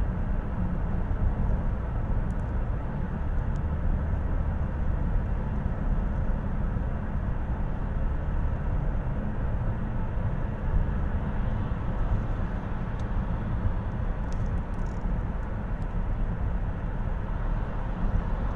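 Steady road and engine noise heard inside the cabin of a moving car, low and even throughout.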